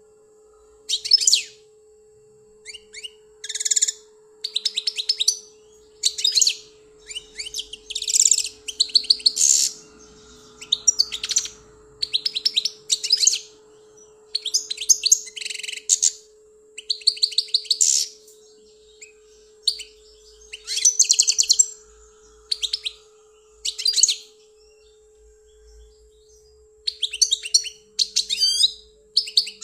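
European goldfinch singing: bursts of rapid, tinkling twittering phrases repeated every second or two, over a faint steady hum.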